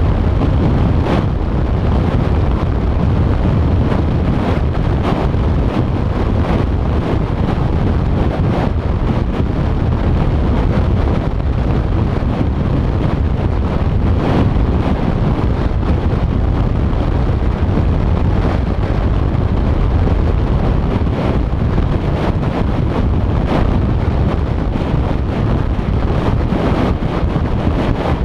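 Wind buffeting the microphone of a camera on a moving vehicle, over steady tyre and road noise, a deep, unbroken rush.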